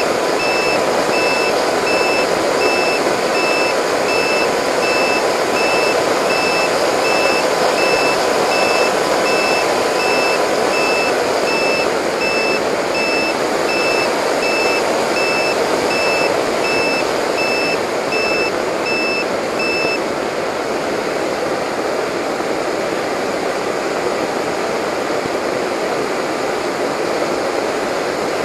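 Delta Speed XS model delta wing in flight, heard from its onboard camera: a steady rush of airflow and motor noise. A regular high beep repeats a bit more than once a second and stops about two-thirds of the way through.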